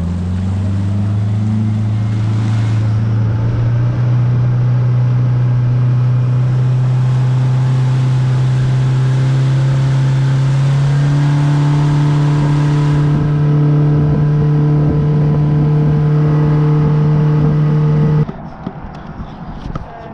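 Yamaha 60 horsepower outboard motor running under throttle, its pitch climbing over the first dozen seconds as the boat gathers speed, then holding steady. The sound cuts off abruptly about two seconds before the end.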